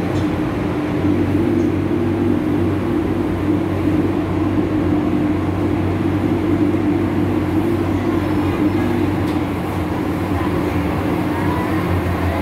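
MTR M-Train subway car running through a tunnel, heard from inside the car: a steady rumble of wheels on rail with a low steady hum.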